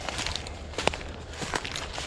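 Footsteps of people walking over rough ground, with irregular crunches and one sharper snap a little before the middle.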